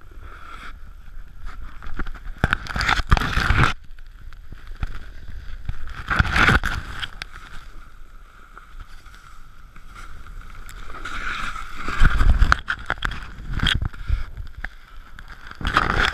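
Snowboard sliding and scraping over snow, in several loud surges of rushing noise, about a second long each, with quieter hiss between them.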